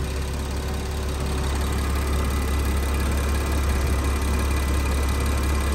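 Car engine idling steadily, a constant low hum, with its variable-displacement air-conditioning compressor running.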